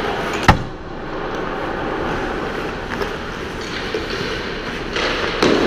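Ice hockey practice sounds: skates scraping the ice and sticks and pucks clacking over a steady hall noise, with one sharp loud knock about half a second in and a few lighter knocks later.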